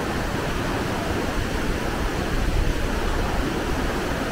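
Whitewater rapids of a river running high, a steady rushing roar of water.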